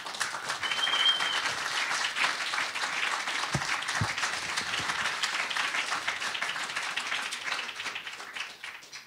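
Audience applauding, a dense patter of many hands clapping that thins out and fades near the end. A brief high tone sounds about a second in, and two dull thumps come around the middle.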